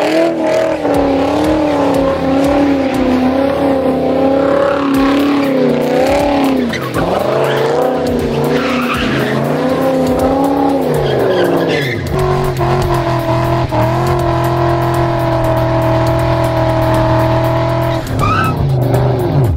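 BMW E39 M5's 4.9-litre V8, with its mufflers and resonators deleted, revving up and down under load while the rear tyres spin and squeal in donuts. About twelve seconds in, the revs are held steady and high for several seconds, then fall away near the end.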